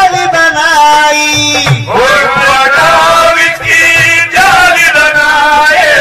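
Male voice singing a devotional Sufi kalam in long, wavering held notes, with musical accompaniment; a new phrase starts about two seconds in and again past four seconds.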